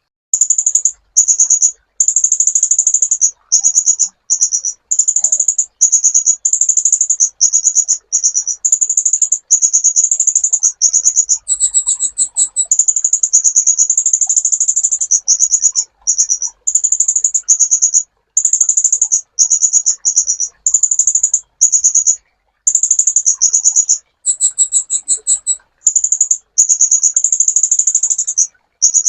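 Sunbird ('kolibri ninja') singing: a long series of very high-pitched, fast trilled phrases repeated one after another with brief pauses, a few of them with a slightly different two-toned note.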